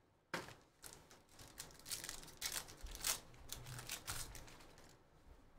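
Trading-card pack wrapper crinkling as the pack is opened and the cards are pulled out and handled: a run of short, irregular crackles and rustles.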